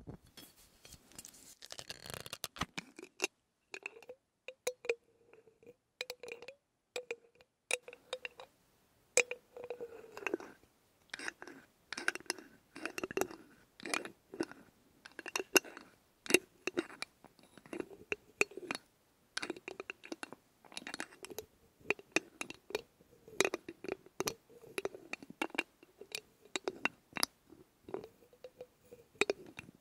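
Fingers tapping, scratching and working the cap of a glass bottle close to the microphones: a rapid, irregular run of sharp clicks and taps. Some of them leave a brief ringing note from the glass.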